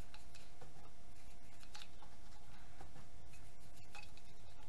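Scattered light clicks and taps as an outboard trim-tilt electric motor housing is handled and scrubbed by hand over a plastic tub of petrol, with a faint steady tone underneath.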